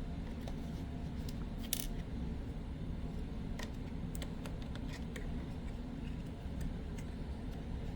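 Scattered light clicks and taps of small hand tools and screws being handled while dismantling a computer, over a steady low hum.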